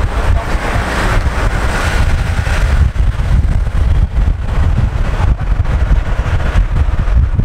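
Mahindra Bolero SUV driving at road speed, heard from inside the cabin: a loud, steady deep rumble of engine and tyres with wind noise.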